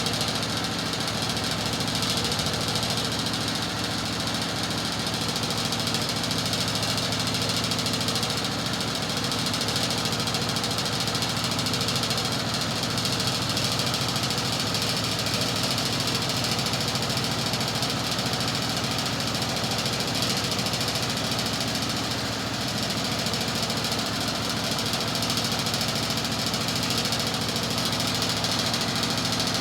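An engine idling steadily, holding one speed with no revving.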